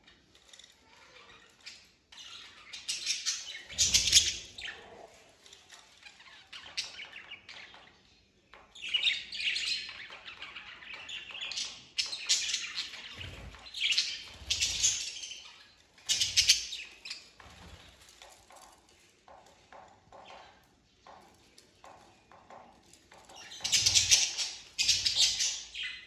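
A flock of budgerigars chirping and singing, in loud bursts with quieter stretches between; the loudest bursts come about four seconds in and near the end.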